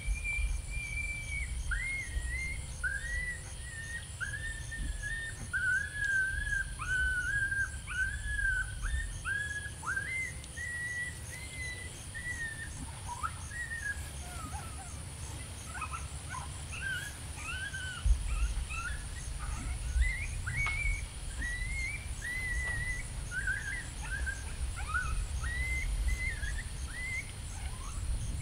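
A continuous run of coyote-style high yelps and whines, each a short rising-then-falling cry, following one another all through. A steady high insect buzz and low wind rumble sit underneath.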